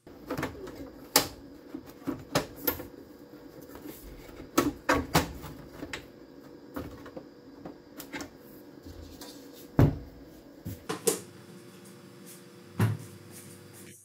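Sheet material being handled and positioned on the bed of an Epilog laser engraver: scattered knocks and clicks, the loudest about ten seconds in and another near the end, over a steady machine hum.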